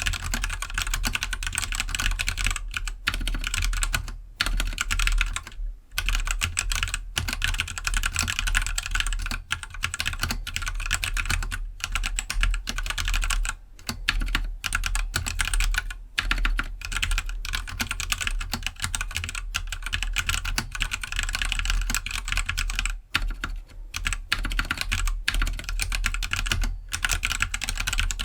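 Keydous NJ68 65% mechanical keyboard with stock Gateron Black linear switches being typed on steadily, a dense run of key clicks broken by brief pauses.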